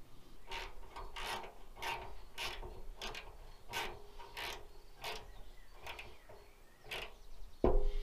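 Hand work at the leaf spring eye and chassis spring hanger: a steady run of short squeaky, scraping metal strokes, about one and a half a second, then a single knock near the end.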